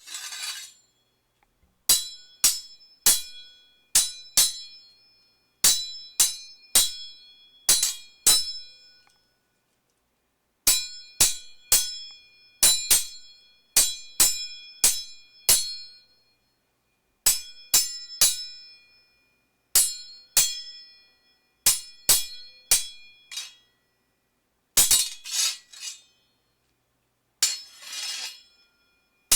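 Sword sound effects: a run of sharp metal blade clashes, each ringing briefly, coming in groups of several strikes with short gaps between. Near the end come two longer, noisy scraping sounds.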